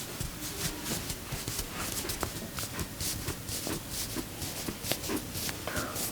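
Hands rubbing and tapping on the scalp and hair during an Indian head massage: a quick, uneven run of soft taps and crackles.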